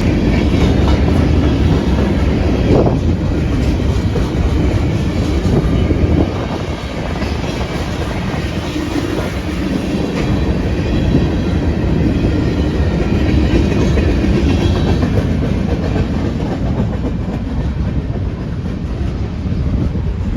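CSX freight train rolling past at speed: a loud, steady rumble of rail cars with the clickety-clack of their wheels over the rail joints.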